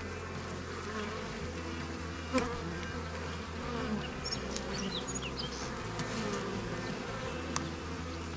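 Honeybees buzzing steadily over a hive opened for a frame inspection. A light knock comes a little over two seconds in, and a smaller one near the end.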